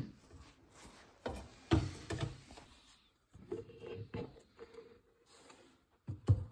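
Plastic waste pipe and fittings being handled and fitted, with a cluster of sharp knocks and clicks and some rubbing about a second and a half in, then scattered lighter clicks.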